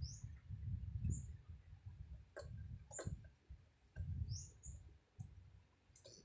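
A woman snoring softly in her sleep: a low rumble that swells and fades over several breaths, dropping away about two thirds of the way in. Short high chirps sound faintly every second or so.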